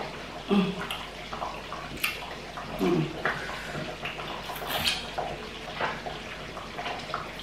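Wet finger-licking and lip-smacking as soup is tasted off the fingers, with two short falling hums of appreciation, about half a second in and about three seconds in.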